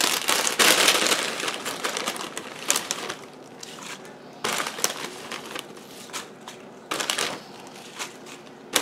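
Plastic bag of fresh spinach crinkling while handfuls of leaves are pulled out and dropped into the crockpot. It is loudest for the first two seconds, then comes in short rustles every second or so.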